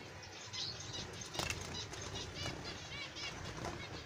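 Zebra finches in an aviary giving short, nasal beeping calls in quick series, with wing flutter and a sharp tap about one and a half seconds in.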